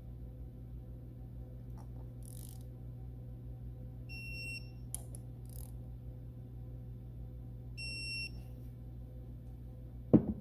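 Digital torque wrench beeping twice, each beep about half a second long and some four seconds apart, signalling that the set torque of 9 Nm on the injector hold-down has been reached. A few faint clicks between, and a sharp thump just before the end, the loudest sound.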